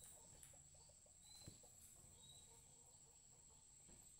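Near silence: faint room tone with a steady high whine and a few faint short high chirps.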